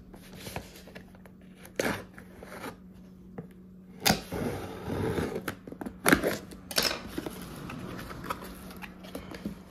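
A sealed delivery package being torn open by hand: a series of short rips and crinkling rustles of the packaging, with a faint steady hum underneath.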